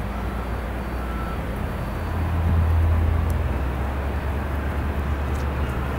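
Boeing 767-300ER's twin jet engines at takeoff power during the takeoff roll: a steady low rumble with a hiss above it, swelling a little about two to three seconds in.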